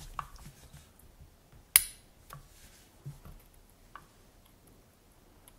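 Handling sounds from a metal flashlight and its USB cable: a few light taps and clicks, with one sharp click a little under two seconds in.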